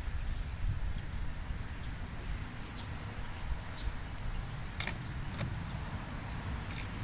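A low steady rumble with three sharp light clicks in the second half; no engine is running.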